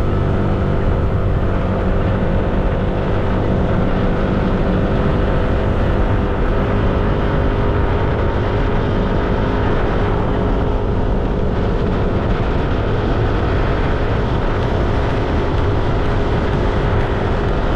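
Yamaha Nmax 155 scooter's single-cylinder four-stroke engine running at a steady cruise, its pitch holding even, under a constant rush of road and wind noise.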